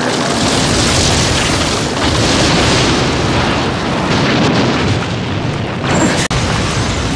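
Loud anime sound effect of a huge spiritual-energy blast: a continuous explosive rumble and rush, with a brief sudden dropout about six seconds in.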